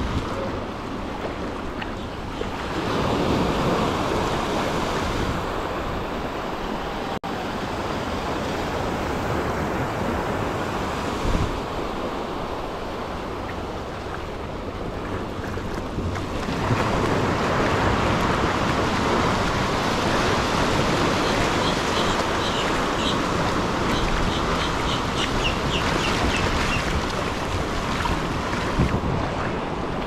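Ocean surf washing up on a sandy beach, a steady rush of water that swells about three seconds in and again about halfway through as waves run up the sand, with some wind on the microphone.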